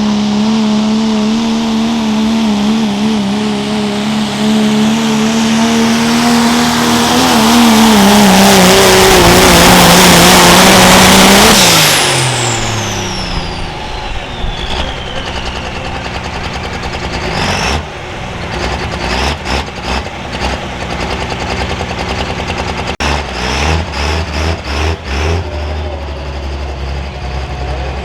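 Turbocharged diesel pickup pulling a sled at full throttle, its engine running steady under load with a turbo hiss. It is loudest about ten seconds in, then the throttle is cut: the engine note drops and the turbo whistle winds down over a few seconds. Scattered knocks and rattles follow, then a low hum.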